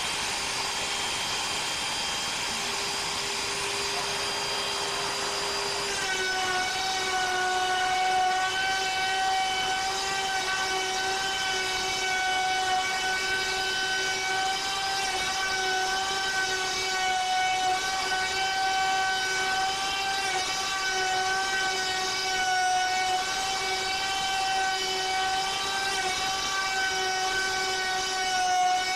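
Router spindle of a benchtop CNC router running at high speed with a steady whine while its straight bit mills a shallow pocket into a wooden board. About six seconds in the whine shifts slightly in pitch and grows louder, then holds steady.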